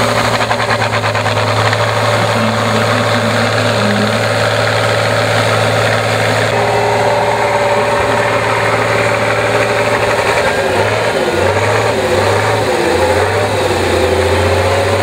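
Off-road trial truck's engine running hard under load as it climbs a steep dirt slope, a steady drone that wavers up and down in pitch several times after about ten seconds.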